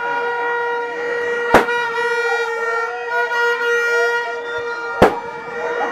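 A horn held on one steady note without a break, over the voices of a crowd, with two sharp thumps about a second and a half in and again about five seconds in.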